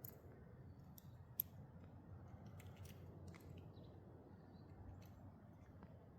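Near silence with a few faint, sharp clicks, the loudest about a second and a half in.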